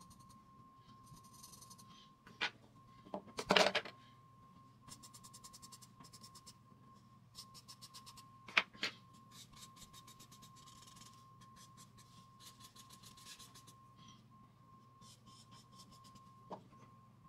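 Charcoal pencil scratching on drawing paper in runs of short, quick strokes, with a few louder knocks, the loudest cluster about three and a half seconds in. A faint steady high whine runs underneath.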